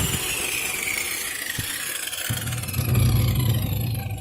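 A motor's whine falling steadily in pitch, followed about three seconds in by a louder low rumble.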